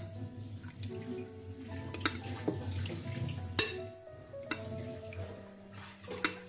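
Ladle scooping tomato sauce and pouring it over sardines in an aluminium pot, with four sharp knocks of the metal ladle against the pot and bowl.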